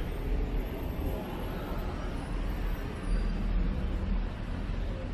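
Road traffic on a city street: a steady rumble of passing vehicles.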